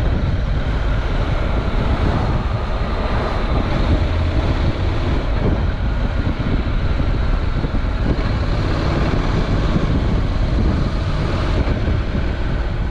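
Honda NC700X's parallel-twin engine running steadily while the bike is ridden along, heard through an on-board camera microphone with wind noise on it.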